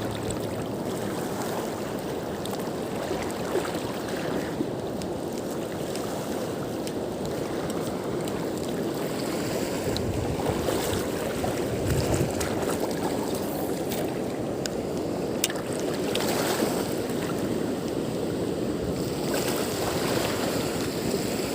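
Steady outdoor water and wind noise, lapping waves at an estuary, with a few faint short clicks.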